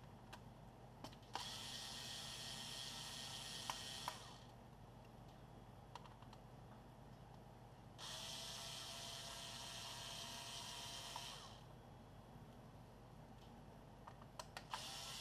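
Small electric screwdriver running in two bursts of about three seconds each, with clicks around them, backing out screws.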